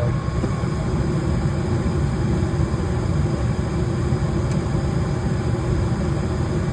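Coleman gas furnace's draft inducer motor running with a steady hum as the furnace cycles through its ignition trials.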